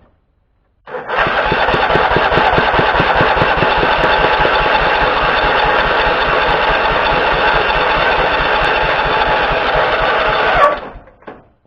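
Lawn tractor's electric starter cranking the engine in a steady, rapid rhythm for about nine seconds without it catching, then cutting off sharply. The owner takes the failure to start for a lack of spark.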